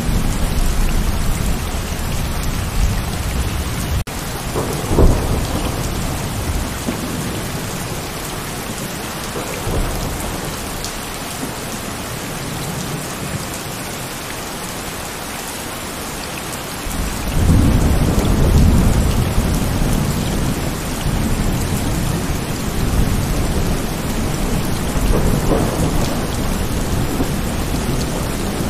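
Heavy rain falling steadily, with rolling thunder: a sharp clap about five seconds in, then a loud low rumble that swells suddenly just past the middle and rolls on, with a further rumble near the end.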